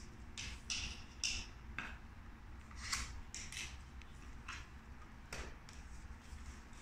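Hard plastic vacuum attachments handled against an aluminium extension tube: a crevice tool pulled off and a dusting brush pushed on. This gives a series of light, irregular clicks and knocks.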